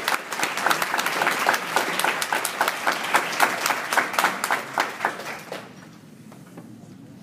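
Audience applauding, dense clapping that dies away about five and a half seconds in.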